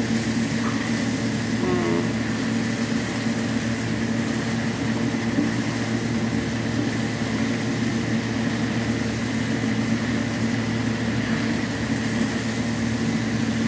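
A steady motor hum runs without a break under a faint sizzle of vegetables stir-frying in a skillet.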